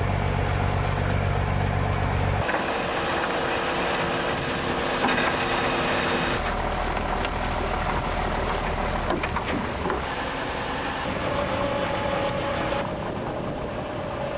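Fishing boat's engine and deck hauling gear running at sea, with rope working over a roller. The sound changes abruptly several times, with a steady low hum in some stretches and clicking and knocking in others.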